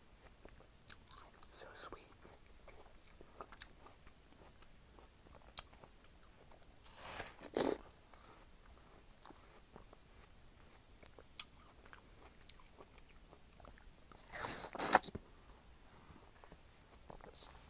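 A person biting into and chewing fresh watermelon: two loud bites, one about seven seconds in and one about fifteen seconds in, with soft chewing and small mouth clicks between them.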